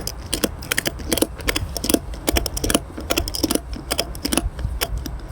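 Steel ratchet strap mechanism working: a run of sharp, irregular metal clicks, several a second, from the ratchet teeth and pawl.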